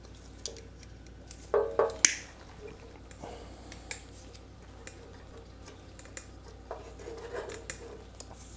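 Pliers clicking and tapping on a spring fuel line clamp and the small metal parts around a carburetor, in scattered sharp clicks with a couple of louder clanks about one and a half to two seconds in.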